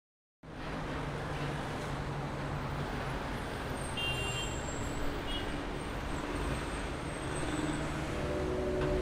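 City street traffic ambience: a steady hiss and rumble of road traffic, with a couple of short high-pitched tones about four and five seconds in. Soft music notes come in near the end.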